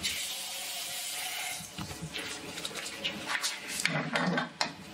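Kitchen tap running water into a stainless steel saucepan, stopping after about a second and a half. Then a series of metallic clinks and knocks as the pot is handled.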